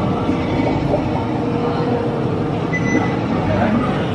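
Steady background din of a busy indoor queue area: a continuous low hum with an indistinct murmur of people.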